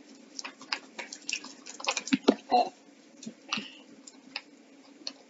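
Spatula stirring thick, sticky glue slime in a glass bowl: irregular wet squishes and quick clicks of the spatula against the glass.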